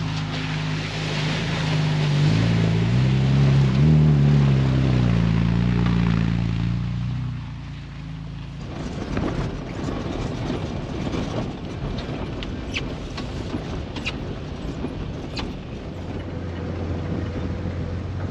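A four-wheel drive's engine driving up a dirt forest track past the camera, its pitch rising and falling, loudest about four seconds in. From about eight seconds in comes driving noise from a bonnet-mounted camera: a steady wind and road rumble with scattered ticks.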